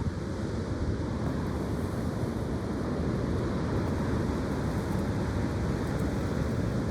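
Strong wind blowing steadily with a low rumble of wind on the microphone.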